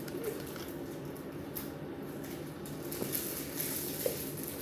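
A person drinking from a drink bottle, with soft handling sounds and small clicks over a steady room hum.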